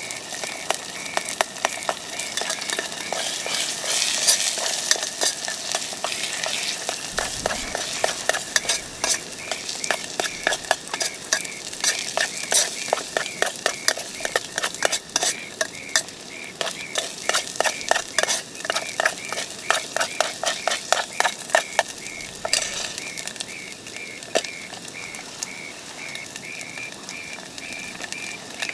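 Food sizzling in a frying pan while a utensil stirs it, with a run of quick, regular scraping strokes against the pan through the middle.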